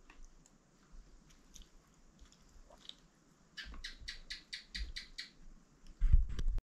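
Chewing and small clicks of people eating at a table. About halfway through comes a quick run of about eight sharp ticks, and near the end a loud bump and rustle as the camera is picked up and moved.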